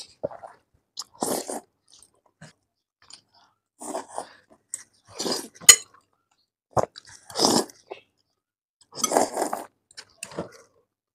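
Close-miked eating of noodles: chewing and mouth noises in short bursts every second or two, with a sharp click about six seconds in.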